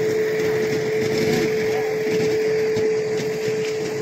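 WDS6 diesel shunting locomotive running: a steady whine over an even mechanical noise.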